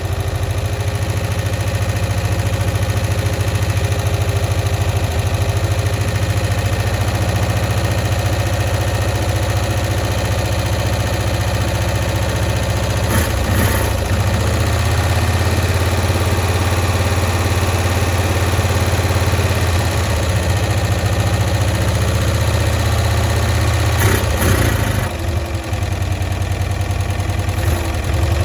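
1965 Cushman Truckster's engine idling steadily while its carburetor is being adjusted; the owner suspects a stuck float. A couple of short sharp clicks come about halfway through and again near the end.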